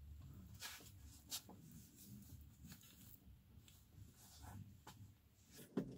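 Near silence in a small vocal booth, with a few faint clicks and rustles as headphones are handled and put on.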